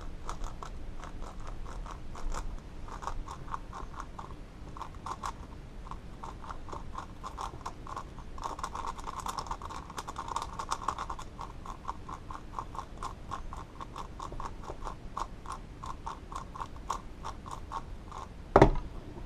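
Qiyi X-Man Galaxy Megaminx V2 being scrambled: a steady run of plastic clicks from its faces turning, several a second, with one loud knock near the end.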